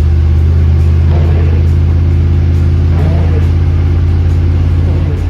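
A Dodge 440 big-block V8 running under steady throttle with a strong, even low drone, easing off about five seconds in.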